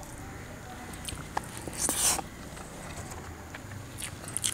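A person eating by hand, tearing naan and chewing, with scattered light clicks and a short, louder crunchy rustle about two seconds in.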